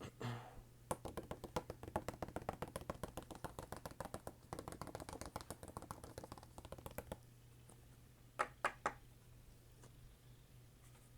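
Hands tapping and clicking on trading cards: a fast, dense run of light taps lasting about six seconds, then two louder clicks a little later.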